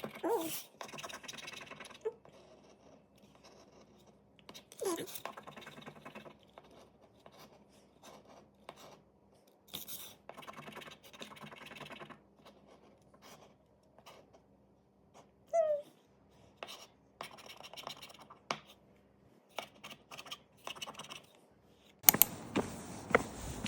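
Close-up scratching and rubbing strokes in separate spurts of a second or two, with light clicks between them and one short squeak a little over halfway through. Near the end a louder run of knocks and steps begins.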